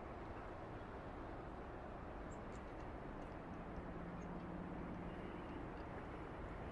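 Wind moving through pine trees: a steady, even rushing. A faint low hum comes in for a couple of seconds around the middle.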